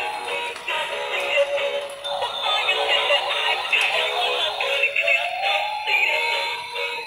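Battery-operated light-up toy crocodile playing its electronic tune, a repeating melody of short notes through a small speaker.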